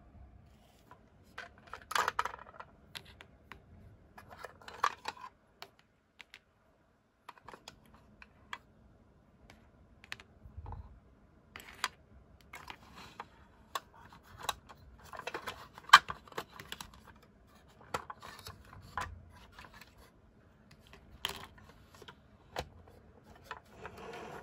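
Small hard plastic toy parts being handled: irregular clicks, taps and light rattles as pieces of a toy ambulance are picked up, set down and fitted together, with a brief silent gap about six seconds in.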